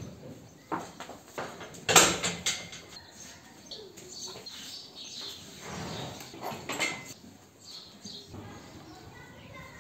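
A horse being handled in a stable: scattered knocks, shuffling and rustling, with one loud, sharp knock about two seconds in and a few more bursts of noise near the middle.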